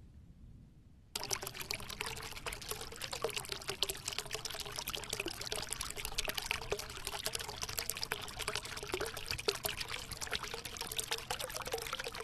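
Small waterfall splashing into a pool: a steady rush of spattering, trickling water that starts suddenly about a second in.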